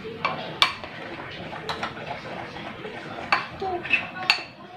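Spoon stirring thick corn-dog batter in a glass bowl, with a few sharp clinks of the spoon against the glass.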